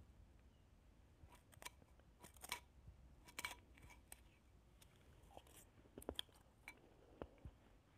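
Faint, irregular crisp crunches of soft shaved ice, from a spoon scooping it out of a bowl and from chewing it.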